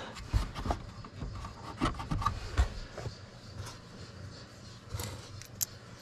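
Hands working at the plastic lower dash trim: scattered light clicks and taps with rubbing and scraping between them.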